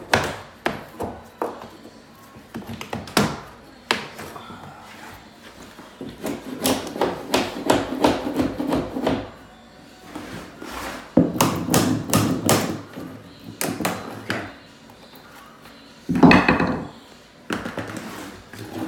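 A metal 5-in-1 tool scraping and chipping at the cut edge of thick laminate flooring, with many sharp taps and knocks and several stretches of rough scraping.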